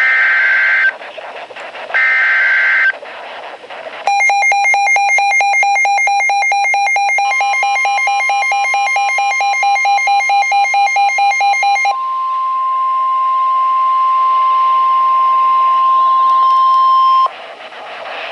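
EAS/SAME digital header data bursts, screeching twice about a second apart, announcing a new weather alert. From about four seconds in comes a rapid pulsed electronic alarm beeping. Under it a steady 1050 Hz NOAA Weather Radio warning alarm tone starts, then sounds alone until it cuts off near the end.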